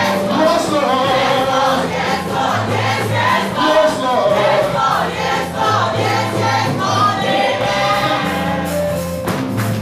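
Gospel music with a choir singing over bass and drums.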